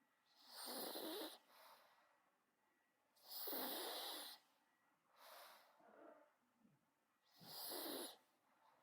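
Terrier dog snorting and wheezing through its nose: three breathy snorts, each about a second long and a few seconds apart, with fainter snuffles between them.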